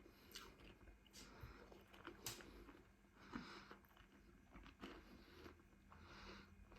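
Faint close-up chewing and biting of food, with a few small sharp clicks scattered through.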